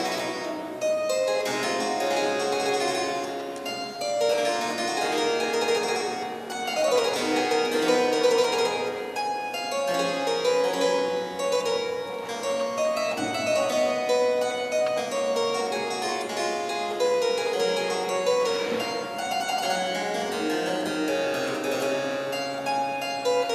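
Harpsichord playing a late-18th-century keyboard piece, a continuous stream of plucked notes.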